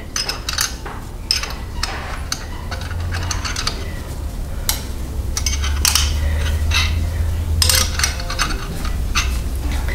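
Hand wrench clinking and tapping against a tight bolt and the surrounding metal in a truck's engine bay, scattered irregular metallic clicks as it is repositioned and strained on. The bolt will not break loose. A steady low rumble runs underneath.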